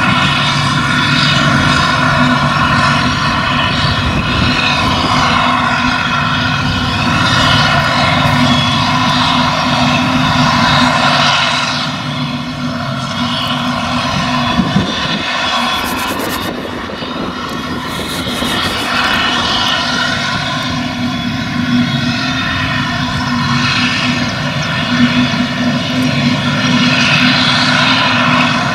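Claas Jaguar 950 forage harvester working under load while chopping grass: a steady engine drone with a high, even whine from the chopper and crop blower. It eases off a little in the middle, then builds again.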